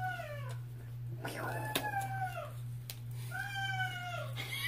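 A boy screaming in the background as a joke: three drawn-out wailing cries in a row, each rising and then falling in pitch, over a steady low hum.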